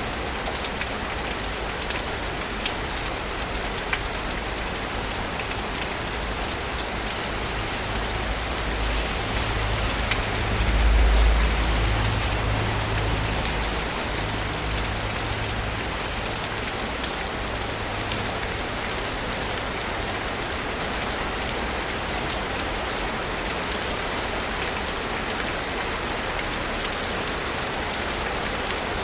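Steady rain falling in a city: a dense, even hiss with scattered ticks of drops. A low rumble swells and fades about ten seconds in.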